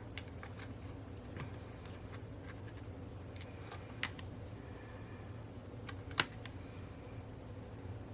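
Thick cardboard postcards being handled, with a few light clicks and short paper rustles over a steady low room hum.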